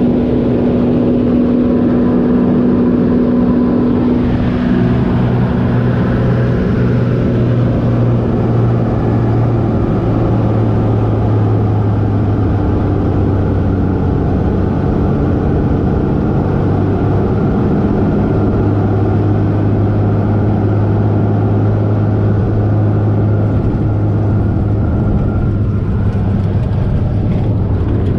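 Cessna 180 floatplane's six-cylinder piston engine and propeller running with a steady drone, its pitch shifting slightly about four seconds in.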